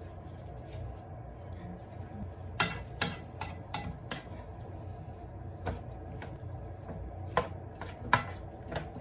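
Kitchen work: utensils, dishes and cookware knocking and clinking in a few irregular sharp knocks, most of them bunched together a little before the middle, over a steady low hum.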